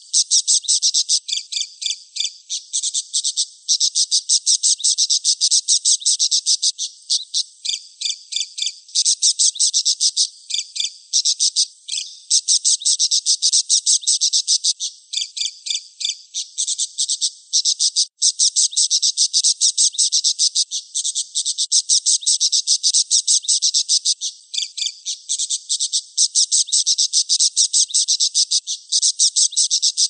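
Budgerigar chattering: a near-continuous stream of rapid, high-pitched chirps with only brief breaks.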